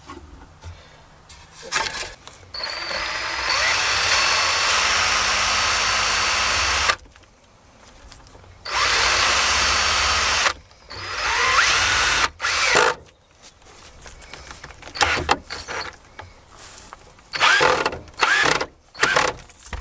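Power drill driving a screw into wood: one long run of about four seconds, two shorter runs, then a string of short bursts near the end.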